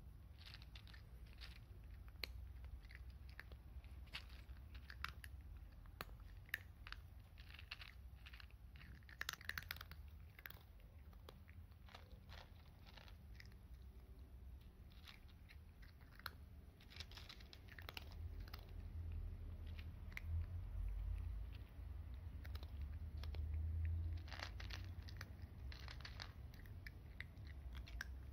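A cat crunching dry cat food kibble, many irregular small crunches, under a low rumble that swells in the second half.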